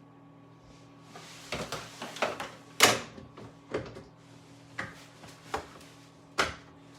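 A string of sharp clicks and knocks from hands and parts working at an electrical breaker panel, irregular, the loudest about three seconds in, over a steady faint hum.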